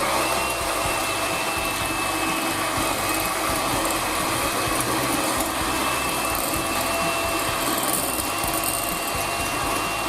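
Electric mixer beating egg whites to a stiff foam: the motor comes up to speed at the start, then runs steadily with a constant whine.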